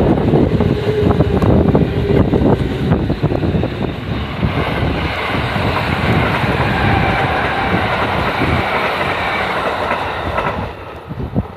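Electric train passing along the track, its wheels clattering rapidly over the rails, then dying away near the end.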